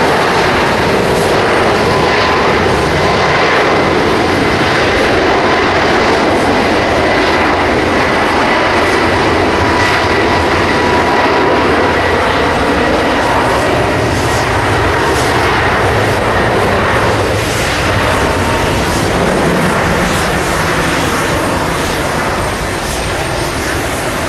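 Boeing 777-300 airliner's twin jet engines at taxi power: a steady jet noise with a high whine running through it. The sound fades slightly near the end as the aircraft turns away.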